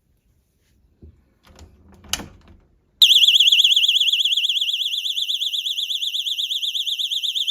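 A 120-decibel two-piece door and window alarm set to alarm mode: a few light clicks, then about three seconds in a loud, shrill siren starts suddenly and warbles rapidly and steadily.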